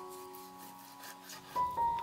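Background music: slow, sustained keyboard notes that ring and fade, with new notes coming in about one and a half seconds in.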